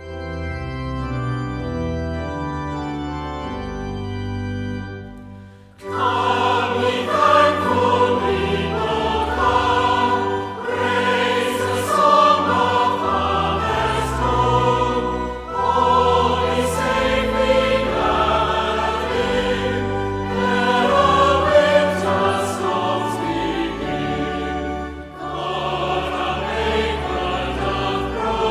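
Church choir singing a hymn with organ. Steady held organ chords play alone for about six seconds as an introduction before the voices come in.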